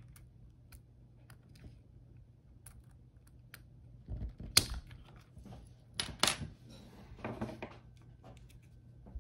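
Small metal tool clicking and scraping against the plastic gearbox of an RC car while working a C-pin loose. Light ticks at first, then a few sharp clicks and short rattles about four, six and seven seconds in.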